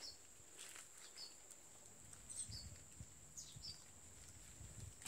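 Quiet outdoor ambience: a steady high-pitched hum with short high bird chirps about once a second, and faint clicks and ticks from cats eating off metal plates.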